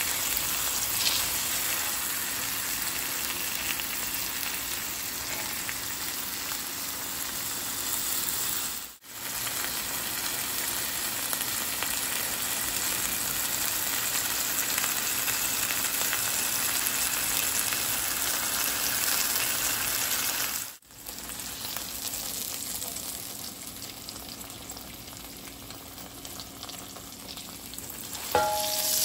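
Seasoned pork chops frying in hot peanut oil in a skillet: a steady sizzle that breaks off briefly twice and is softer in the last third. A short clink near the end.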